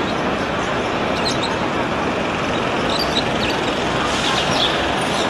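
Steady street traffic noise, with a few faint, short, high chirps over it.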